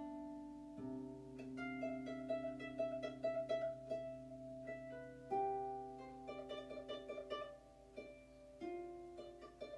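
Background music: a light instrumental tune of quick plucked notes over held chords.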